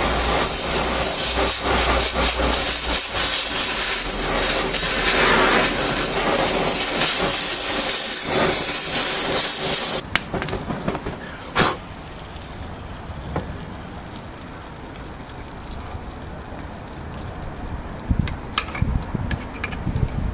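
Oxy-acetylene cutting torch hissing steadily as its flame heats a rubber control-arm bushing to break the bushing's bond. The hiss stops suddenly about ten seconds in, followed by a single knock and a few light clicks near the end.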